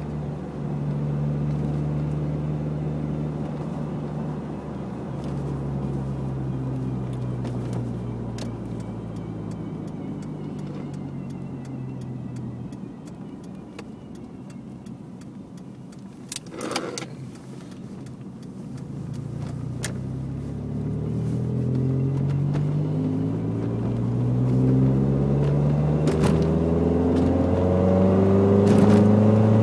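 Nissan Sentra SE-R Spec V on the move, its four-cylinder engine slowing as the car coasts for about the first half, then building revs again through the second half, with a brief sharp knock just past the middle. The car also has a whine from the passenger side whose cause the owner does not know.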